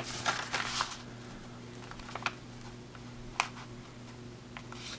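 A sheet of planner paper rustling and crinkling as it is folded and creased by hand, mostly in the first second, then a couple of soft taps. A steady low hum runs underneath.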